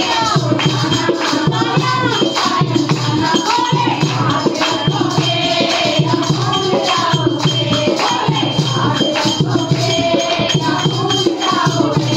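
Devotional song to Shiva (Bhole) sung by a group of women, with rhythmic hand-clapping and a rattling shaker keeping the beat.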